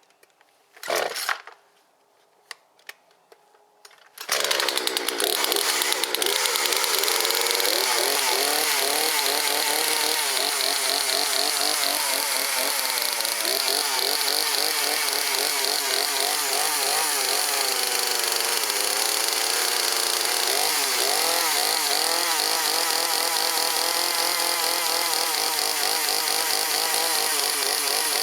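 Two-stroke chainsaw pull-started, catching about four seconds in and then running loudly with its engine speed wavering up and down. The spark arrestor screen is out of its muffler, and the saw has not been run for a long time.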